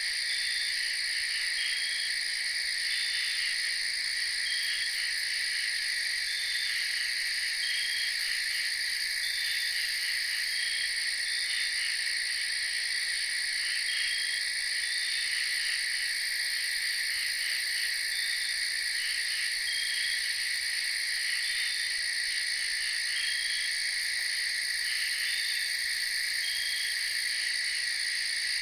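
A chorus of frogs and insects: a steady high trilling, with short chirps repeating about once a second.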